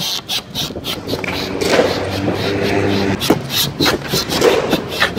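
Clicks and knocks of hands gripping and handling a longboard truck, with a steady low hum for about a second just before the middle.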